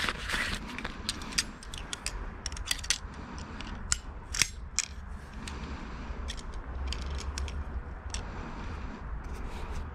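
Small hard objects being handled: irregular sharp clicks and clinks, a few louder ones near the middle, over a steady low rumble.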